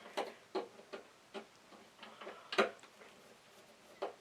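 Irregular clicks and light knocks of a screwdriver working the screws that hold a door latch in the edge of the door, the loudest a little past halfway.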